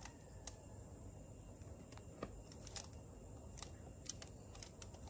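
Faint, irregular small clicks and taps from a syringe being worked in a small glass beaker, over a low steady background hum.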